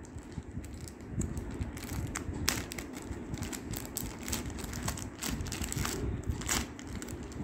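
Clear plastic zip-lock bag crinkling and crackling in a dense, irregular run of small clicks as it is opened and an earphone case is worked out of it, with low handling rumble underneath.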